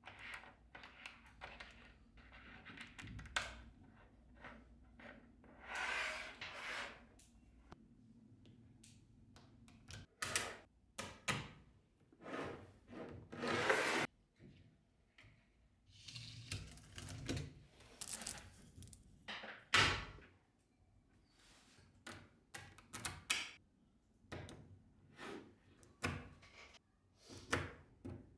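Small neodymium magnetic balls clicking and snapping together as they are handled, in irregular clusters of sharp clicks, with a couple of longer rattling stretches about six and thirteen seconds in.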